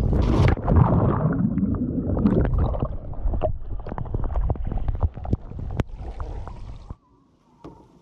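Lake water sloshing and gurgling right at the camera as it bobs at the surface just after a water-slide splashdown. It is loud at first and thins out to scattered drips and small splashes, then drops away about a second before the end.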